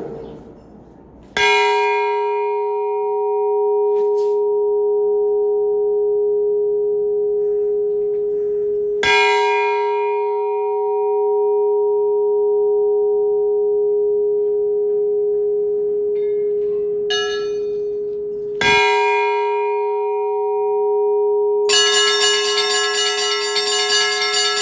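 Orthodox church bells: a large bell struck slowly three times, about eight seconds apart, each stroke ringing on until the next. Near the end the smaller bells join in a quick, dense peal over it.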